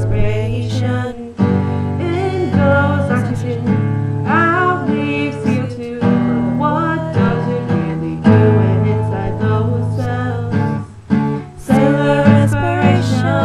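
Acoustic guitar strummed in steady chords, with a young woman singing along; the playing drops out briefly about eleven seconds in.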